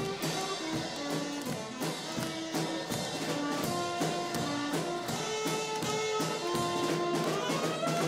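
Upbeat jazz band music, horns carrying the melody in held notes over a steady beat.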